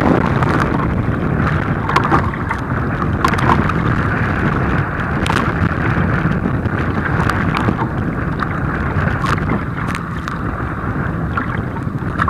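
Wind buffeting the microphone, with water splashing and slapping in rough seas around a kayak; sharp splashes come every second or so.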